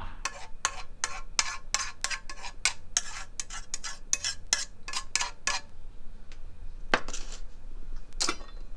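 A utensil scraping and tapping against a non-stick frying pan in quick strokes, about four a second, as the cooked egg is worked out of the pan. Two longer scraping sounds come near the end.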